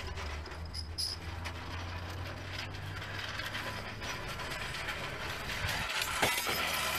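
Metal car jack clicking and rattling as it is handled and carried, over a steady low hum that fades out about five and a half seconds in.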